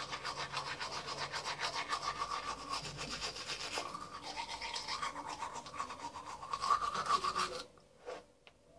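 Manual toothbrush scrubbing teeth in quick, even back-and-forth strokes, which stop near the end.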